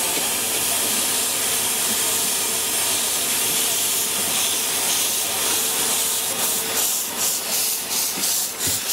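Miniature steam locomotive hissing steam steadily. From about six seconds in, regular exhaust chuffs join the hiss at roughly three a second as it works past.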